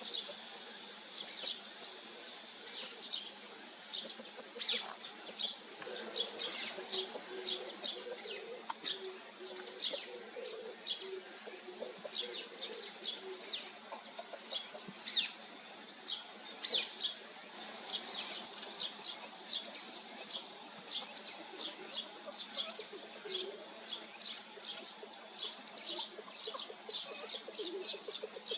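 Small birds chirping in a rapid, continual series of short high chirps, with a few louder, sharp down-slurred calls, over a steady high insect hiss.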